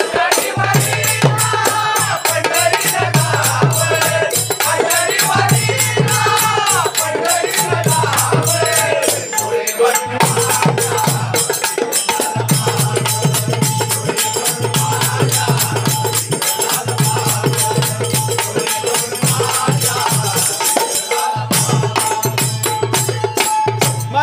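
Marathi devotional bhajan (abhang) music: a voice sings for the first nine seconds or so over a steady held drone, a quick jingling percussion rhythm and a pulsing drum beat, and the instruments carry on after the singing stops.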